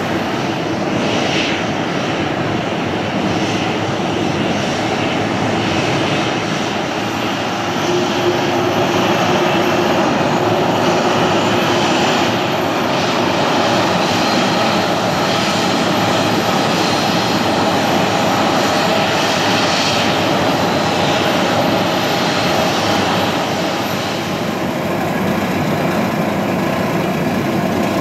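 Boeing 737-700's CFM56-7B turbofan jet engines running at low taxi power: a steady rumble with a high whine over it.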